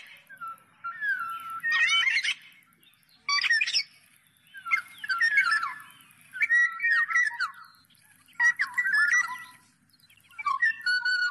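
Black-naped oriole calling: short phrases of clear whistled notes mixed with harsher, scratchy notes, one phrase every one and a half to two seconds.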